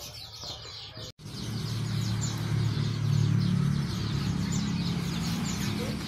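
Many small caged birds chirping together, a rapid stream of short high chirps. A brief dropout comes about a second in, and after it a low steady rumble runs underneath.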